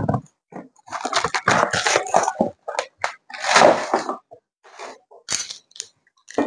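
F-clamp packaging being opened by hand: irregular crinkling and tearing noises, with a few sharp knocks from the package and the clamps being handled.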